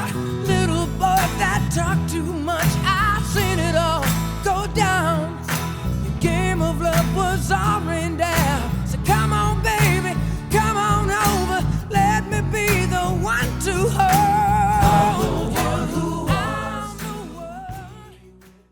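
Pop song with a singing voice over a steady beat, fading out over the last few seconds.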